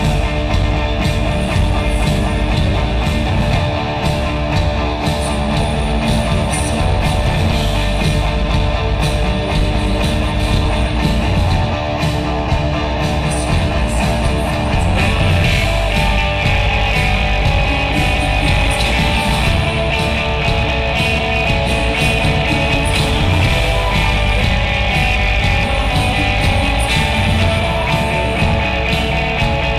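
Alternative rock band playing live through a concert PA, recorded from the audience: electric guitar, bass and drums. About halfway through, the guitar sound gets brighter and fuller.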